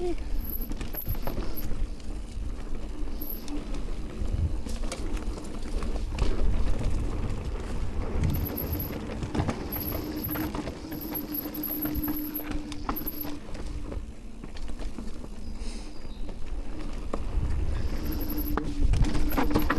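Amflow electric mountain bike riding down a dirt trail: tyre noise and low wind rumble, with knocks and rattles over bumps and a steady hum through much of it.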